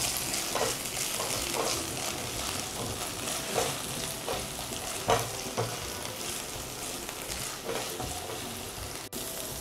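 Boiled green peas sizzling in hot oil in a kadhai on medium flame, with a spatula scraping and stirring through them every second or two.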